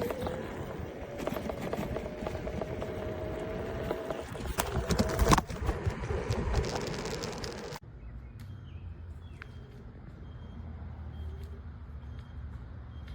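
Electric scooter being ridden: wind and road noise with a faint, slowly rising motor whine and one sharp knock about five seconds in. About eight seconds in it cuts off abruptly to a quieter low hum.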